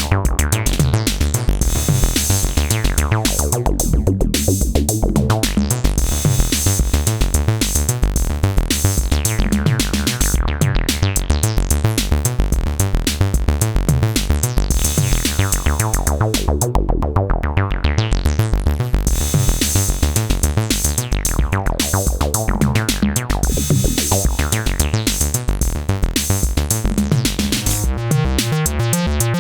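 Acid bass line from an Elektron groovebox playing over a steady drum-machine beat, its filter sweeping open and closed several times.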